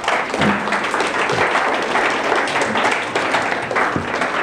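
An audience applauding, a dense patter of many hands clapping.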